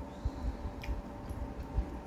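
Eating sounds close to the microphone: soft, low, irregular chewing thumps and one light click about midway, over a faint steady hum.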